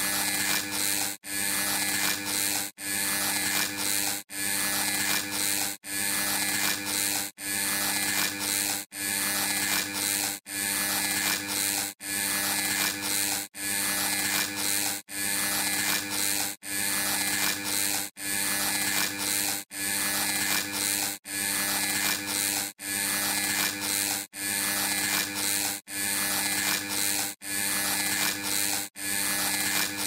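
Electric buzz with a steady hum underneath, cutting out for an instant about every second and a half as a short loop repeats.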